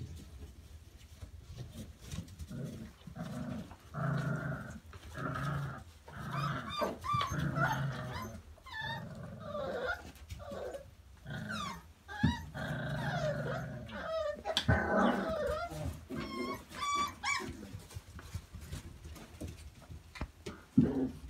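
Five-week-old XL bully puppies play-fighting, with a string of short puppy growls and high, wavering whines and yips in between.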